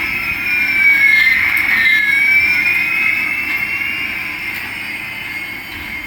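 Electronic sound effect from a battery-operated toy's sound chip: two thin whining tones, one rising and one falling, crossing about a second and a half in over a faint hiss.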